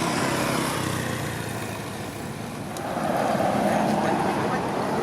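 A motor engine running, growing louder about three seconds in.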